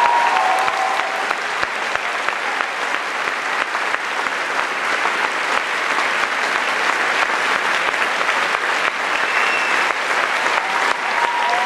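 Audience applauding steadily in a concert hall, a dense, even patter of many hands clapping.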